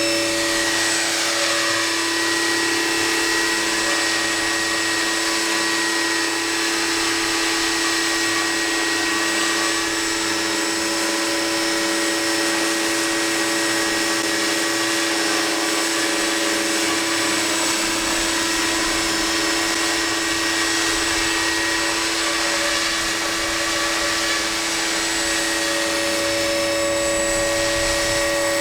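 Scale RC helicopter (Aérospatiale SA 315B Lama model) in flight, its motor and rotor giving a steady high whine, with a falling sweep in pitch in the first couple of seconds.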